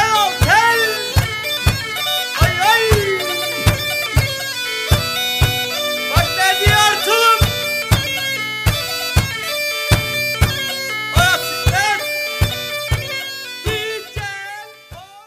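Black Sea horon dance tune played on the tulum bagpipe over a steady drone, with a drum beating about twice a second; the music fades out near the end.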